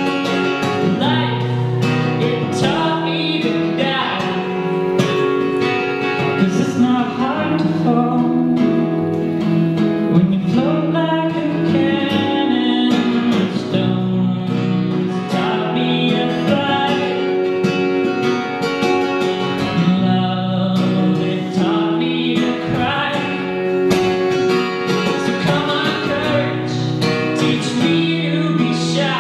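A man singing a song while playing an acoustic guitar, the voice and guitar going on without a break.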